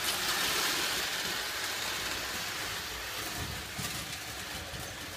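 Lionel O gauge toy trains running on a tinplate layout: a steady whirring rattle of electric motors and metal wheels on the three-rail track, easing off slightly near the end.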